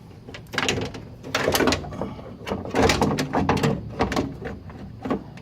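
Van side-door latch hardware being worked by hand: several bursts of metallic clunks, knocks and rattles.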